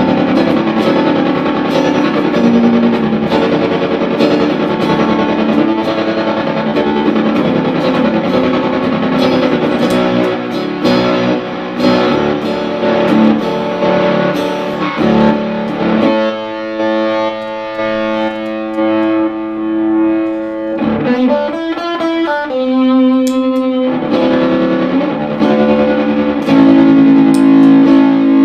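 Electric guitar played through an Electro-Harmonix Super Ego+ pedal set for vibrato: busy picked notes at first, then long held notes from about halfway on, with a wavering pitch.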